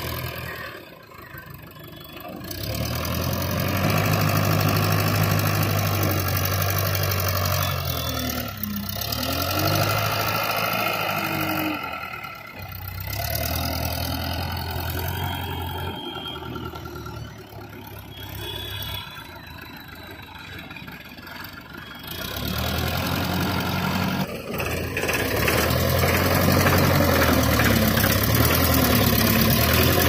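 Tata TH86 backhoe loader's diesel engine running under work, revving up and settling back several times, with a few abrupt breaks in the sound.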